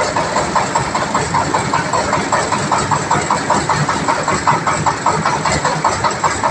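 Engine running steadily with a rapid, even knocking beat, driving a rice milling machine (huller/polisher) under test.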